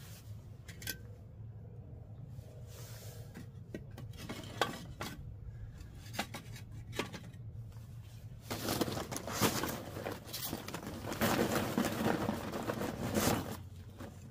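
Clinks and knocks of pots and metal ware being handled, scattered through the first half, then a denser, louder stretch of clattering and scraping for about five seconds.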